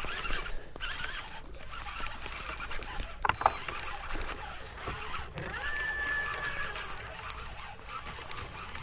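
Baitcasting reel being cranked as a freshly hooked bass is reeled in, with a sharp knock about three and a half seconds in.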